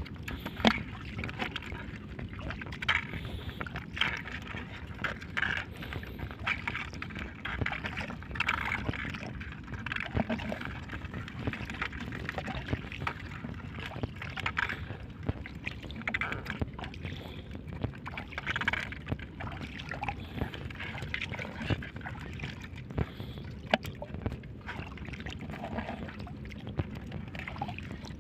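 Shallow seawater sloshing and splashing, with many small irregular splashes and trickles, as when wading or working through water at the shore.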